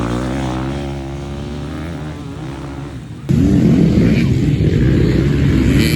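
Off-road dirt bike engine pulling away and fading over the first three seconds. Then, after an abrupt change, a closer dirt bike engine revving up and down as the rider works the throttle.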